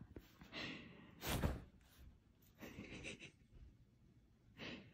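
A person breathing softly: four faint breaths about a second apart.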